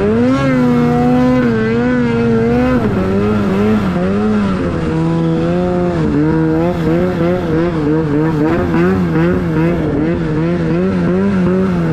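Snowmobile engine running under throttle, its pitch rising and falling with the throttle. It dips about three seconds in, then settles lower and wavers quickly up and down.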